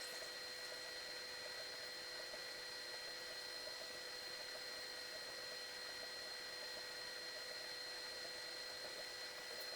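Hot-air rework station blowing steadily while desoldering a laptop CPU: an even airflow hiss with a constant high whine.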